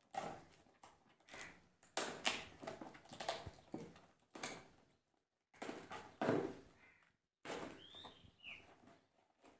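Cardboard sweet box being handled and pried open: intermittent rustling and scraping of cardboard and paper, with small clicks, busiest in the middle.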